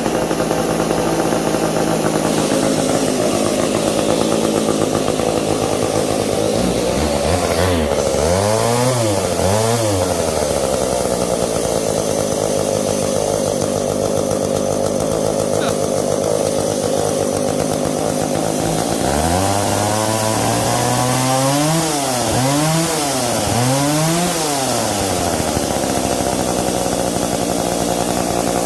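Small vintage two-stroke saw engine running at a steady idle, blipped up and back down twice about a third of the way in and four times about two-thirds of the way through.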